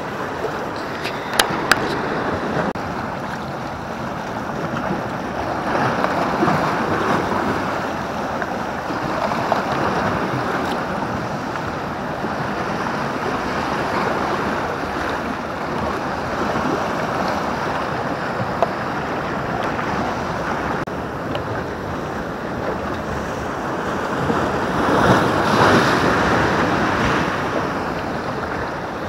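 Sea waves washing and breaking against the boulders of a rocky breakwater, a steady surf that swells louder several times as bigger waves come in, most strongly near the end. A couple of sharp clicks sound near the start.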